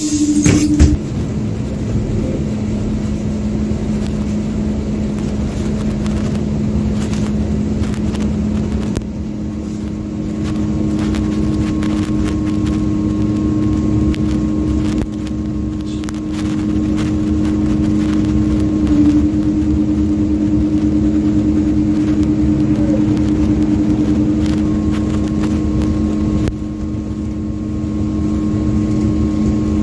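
Cabin noise of a MAZ 205 city bus under way: engine and road noise with a steady humming tone, and a loud knock about a second in.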